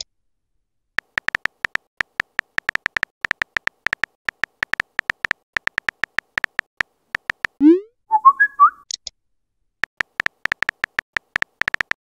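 Phone on-screen keyboard tap clicks as a text message is typed in quick taps. About two-thirds through, a rising swoop plays as the message sends, then a short warbling tone. The typing clicks then start again.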